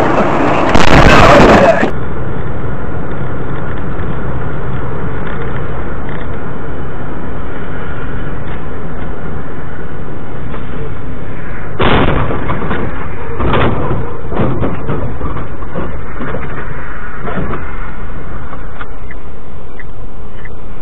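Loud crash of a semi-trailer truck collision about a second in. After that comes steady road noise heard from inside a moving vehicle, with two sharp knocks around the middle.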